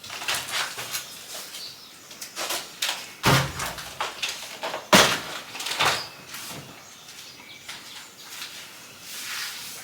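Items and packaging being handled: uneven rustles and knocks, with a thump about three seconds in and a sharp knock about five seconds in.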